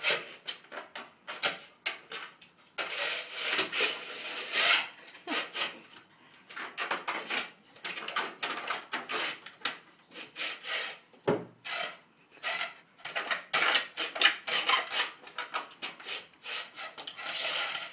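Plastic frisbee scraping and clattering on a tiled floor in short, irregular scrapes and knocks as a German shepherd puppy noses and paws at it, trying to pick it up.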